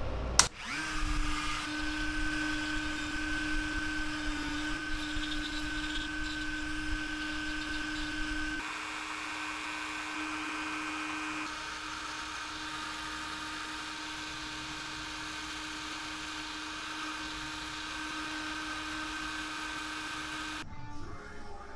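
Flex-shaft rotary tool with a ball-shaped carving burr running at a steady high whine as it grinds away wood on a carved lure body. It clicks on and its pitch rises briefly near the start, the tone shifts abruptly twice, and it cuts off suddenly near the end.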